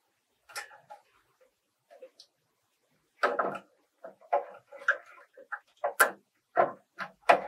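Irregular handling noises: short clicks, knocks and rustles, sparse at first, then denser about three seconds in, with the sharpest knocks in the last two seconds.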